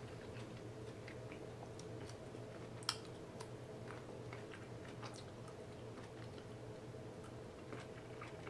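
A person chewing food with the mouth close to the microphone: faint wet clicks and smacks, with one sharper click about three seconds in, over a steady low hum.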